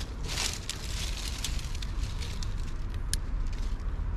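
Dry twigs and leaves crackling and snapping at a small wood cooking fire under a pan, scattered sharp crackles with one louder snap about three seconds in, over a steady low rumble.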